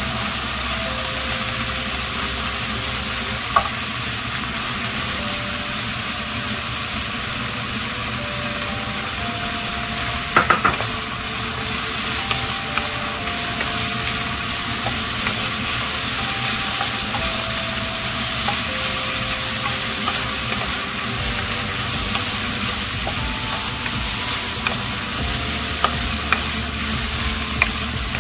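Food sizzling as it fries in a pan, a steady hiss, with a utensil stirring and clicking against the pan now and then, several times in quick succession about a third of the way in.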